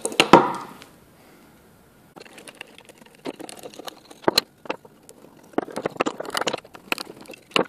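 Scattered small clicks, knocks and rattles of wooden bars, screws and a screwdriver being handled on a workbench as a wooden centre-finding gauge is taken apart, starting about two seconds in.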